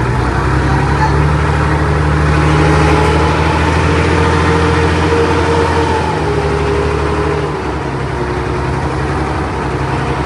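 Heavy diesel engine of earthmoving machinery running steadily under load, rising slightly over the first few seconds and easing off about six seconds in.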